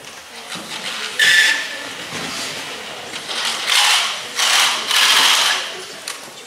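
Rustling and swishing of a large cloth rug being handled and draped over a wooden frame, in several short bursts about a second apart, the longest near the middle and end.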